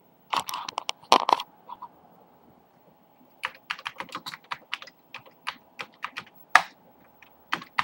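Typing on a Commodore 128 keyboard. A few clicks and knocks come in the first second and a half, then after a short pause a quick run of key clicks lasts to the end.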